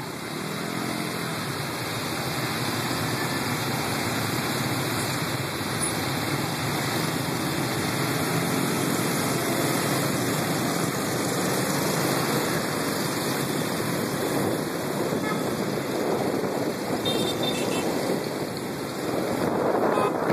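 Motor scooter riding in a pack of motorbikes: small engines running, with wind rushing over the microphone. Louder over the first couple of seconds.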